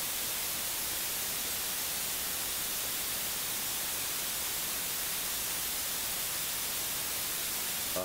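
A steady, even hiss of recording noise with no other sound in it.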